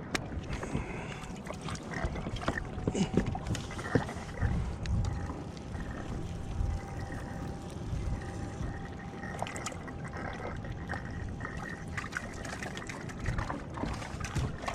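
Water lapping and gurgling against a plastic fishing kayak's hull, with scattered small knocks and clicks.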